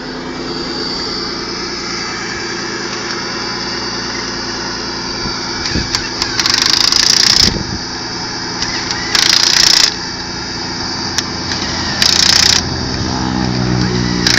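Impact wrench rattling in three short bursts, the first and longest about a second and a half, as it drives the wheel nuts during a rally car's wheel change. An engine runs steadily underneath.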